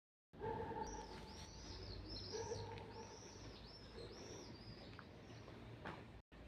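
Small birds chirping: a quick run of repeated short, arched high notes over a faint steady low hum.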